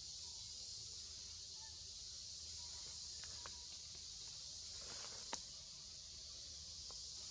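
Quiet forest ambience: a steady high insect hum, with a few faint clicks and small squeaks, the sharpest tick about five seconds in.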